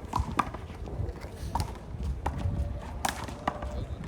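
Irregular sharp slaps and smacks of a handball on hands and the wall during play, about eight in four seconds, the loudest about three seconds in. A steady low wind rumble on the microphone runs under them.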